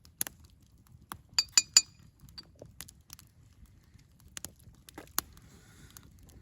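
Campfire crackling with scattered sharp pops, and three quick ringing clinks about one and a half seconds in.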